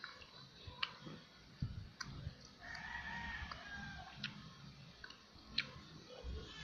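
Close-up chewing and wet mouth clicks and smacks from someone eating, in scattered sharp ticks. A long drawn-out call sounds in the background about three seconds in.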